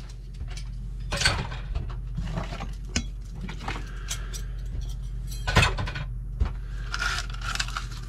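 Scattered clicks, light knocks and rustling of a new plastic coffee maker and its plastic packaging being handled during unboxing, with the sharpest knock about five and a half seconds in. A steady low hum runs underneath.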